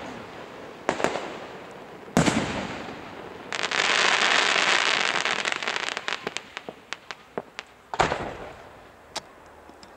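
Aerial firework shells bursting in a display: sharp bangs about one and two seconds in, then a few seconds of dense crackling that thins out into scattered pops, and another loud bang near the end.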